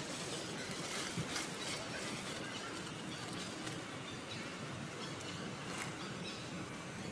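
Outdoor forest ambience: a steady hiss of background noise with scattered faint clicks and a few short, faint chirps.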